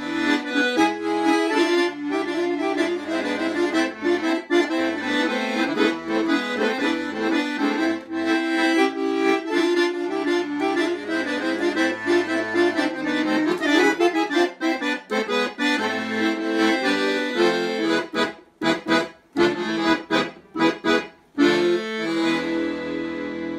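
Instrumental accordion music in a traditional style. Near the end the playing breaks into short, separate chords, then settles onto a held chord.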